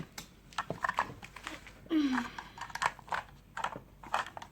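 Plastic toy dinosaur figures and train pieces being handled: a series of light, irregular clicks and taps, with one short falling sound about two seconds in.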